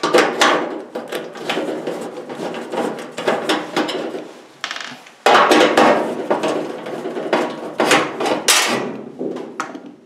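Hand screwdriver backing screws out of the sheet-metal heating-element housing of an electric clothes dryer: repeated clicking and scraping of metal on metal, with a louder stretch of scraping about five seconds in.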